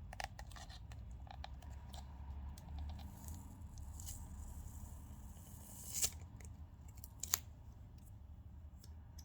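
Smartphone battery being pried off its adhesive: small clicks and scraping from the pry tool, with a longer stretch of scraping in the middle and two sharper clicks later on.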